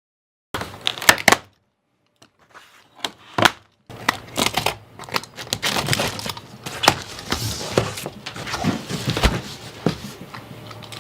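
Irregular knocks, clicks and rustling of cardboard packaging being handled, with short gaps in the first few seconds and steady handling noise from about four seconds in.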